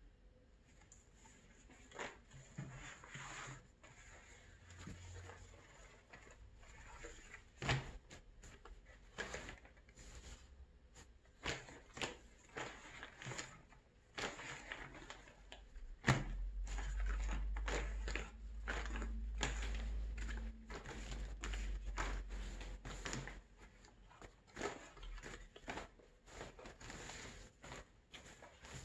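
Stiff crocodile-leather hides being lifted and shuffled on a worktable: rustling and flapping of leather with many scattered knocks and slaps. A low rumble runs for about seven seconds midway through.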